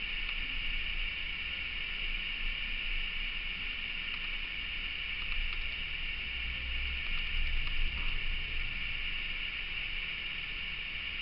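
Steady background hiss with a low rumble underneath that swells briefly about seven to eight seconds in.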